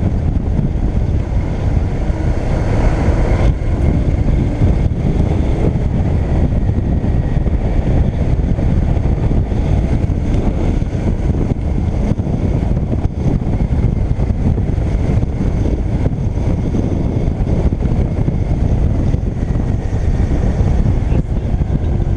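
Steady wind rush on the microphone of a camera mounted on a moving motorcycle, with the motorcycle's running noise beneath it.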